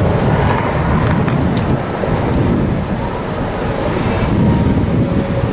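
Steady low rumble of a car on the move, heard from inside the cabin: road and engine noise with no break.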